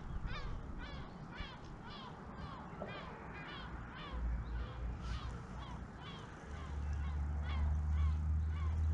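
Birds calling over the water: a run of short, sharply pitched calls, about two a second. A low rumble comes in past the middle and gets louder near the end.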